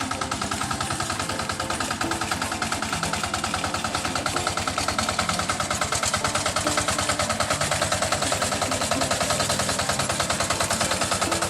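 Small engine running steadily with a rapid, even firing beat, growing louder over the first half, typical of a single-cylinder farm engine working nearby.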